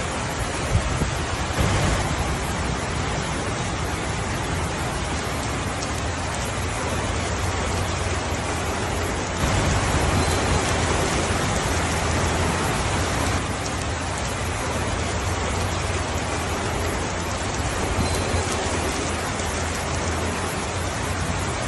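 Steady rainfall, a dense even hiss, swelling louder for a few seconds about halfway through.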